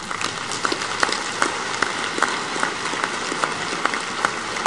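Large audience applauding, with individual sharp claps standing out two or three times a second.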